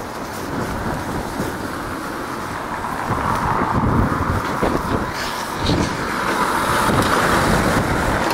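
A small flatbed truck drives past close by on a brick-paved street. Its engine and tyre noise grow louder from about three seconds in and peak near the end.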